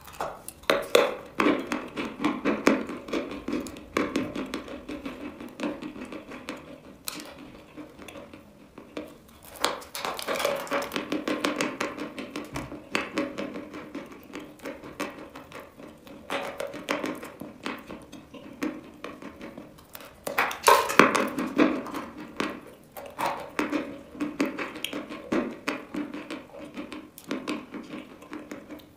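Dry white chalk topped with dark flakes being bitten and chewed close to the microphone: crisp crunching and crackling throughout, with louder snapping bites every few seconds.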